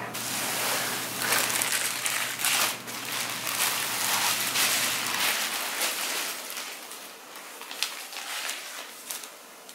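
A large clear plastic packaging bag crinkling and rustling as it is handled and a bench cushion comes out of it, dense and crackly at first and thinning out over the last few seconds.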